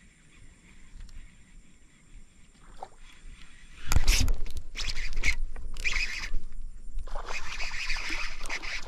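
A sudden loud splash and rush about four seconds in, as a snakehead takes the lure and the hook is set. Then repeated splashing as the hooked fish thrashes at the surface while it is reeled in.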